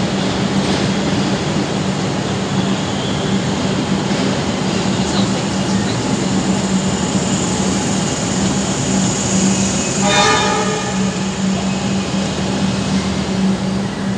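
Comeng electric suburban train running along the platform with a steady hum and rolling noise. A short horn blast sounds about ten seconds in.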